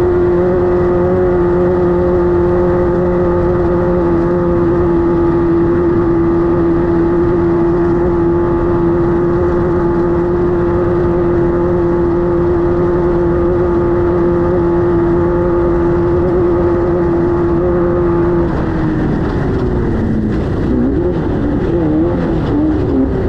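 Class 5-1600 off-road race car's air-cooled 1600cc VW engine running hard at steady revs. About eighteen seconds in the revs drop, then rise and fall unevenly.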